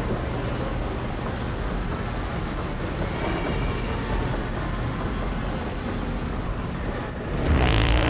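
Steady low hum of mall ambience, then about seven seconds in a loud, wet prank fart noise lasting about a second.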